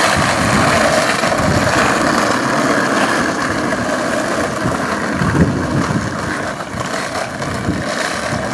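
Skateboard wheels rolling over rough, cracked asphalt: a steady gritty rumble, with one brief knock about five seconds in.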